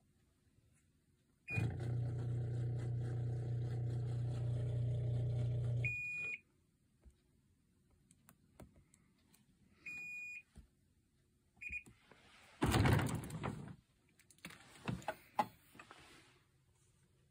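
Panasonic NP-TZ200 countertop dishwasher started with a beep, running a steady low motor hum for about four and a half seconds that stops with another beep. Two more short beeps follow, then a loud rush as the door opens, and dishes clatter lightly in the rack near the end.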